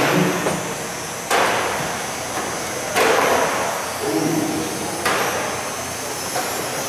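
Three sharp knocks ring out in a large hall, about one and a half to two seconds apart, over a steady background hum.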